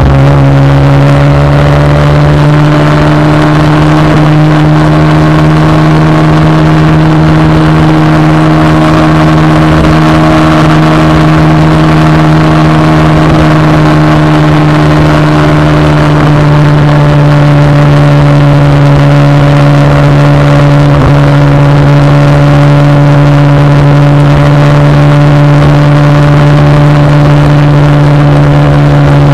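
Motorcycle engine running at a steady cruising speed, a constant drone that holds an almost even pitch, with wind rushing past.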